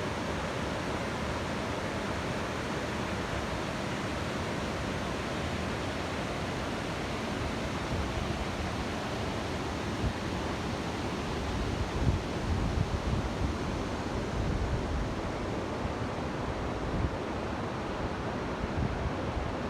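Waterfall rushing steadily, an even wash of falling water. About two-thirds of the way through, a few low rumbling bumps rise over it for a few seconds.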